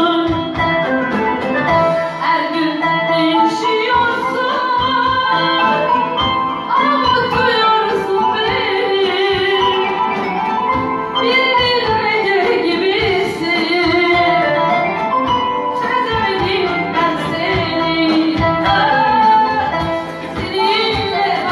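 A song: a woman singing over instrumental accompaniment, her melody bending and wavering.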